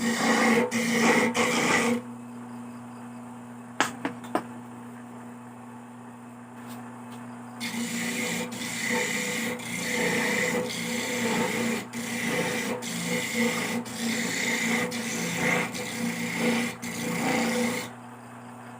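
Coconut meat being scraped on a serrated metal coconut grater (kudkuran) in repeated rasping strokes. The scraping stops for several seconds after the first two seconds, with a couple of light clicks, then resumes steadily for the second half.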